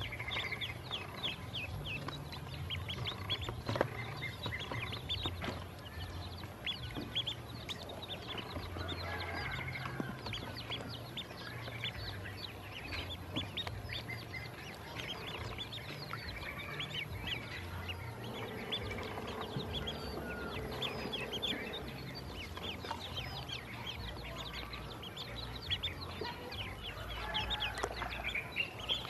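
Ducklings peeping: many short, high cheeps from several birds at once, overlapping without a break.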